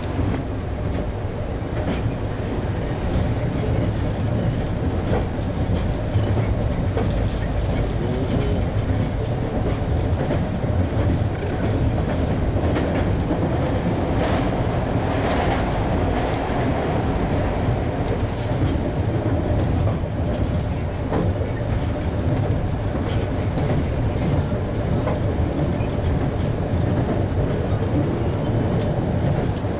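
MBTA Red Line rapid-transit car running on the rails, heard from inside the car: a steady low rumble of wheels and running gear, with a louder, brighter stretch about halfway through.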